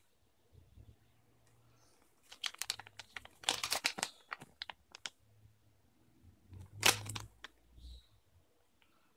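A thin paper toy leaflet being unfolded and handled, crinkling in a run of short crackles from about two to five seconds in and once more, loudest, near seven seconds.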